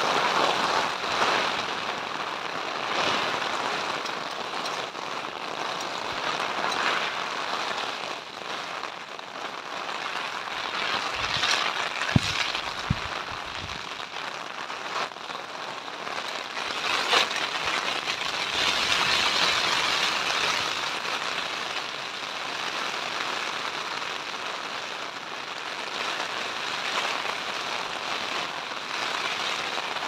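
Heavy rain falling on a camping tent, heard from inside: a steady rush that swells and eases in waves. A few sharp clicks stand out about twelve and seventeen seconds in.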